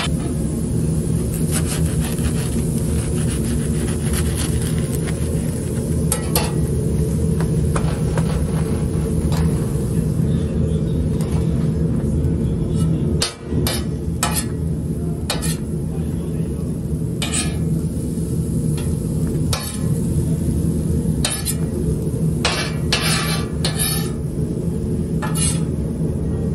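A metal spatula scrapes and taps on a steel flat-top griddle while a chopped sucuk, egg and tomato filling fries on it. There are irregular clicks and scrapes over a steady low rumble.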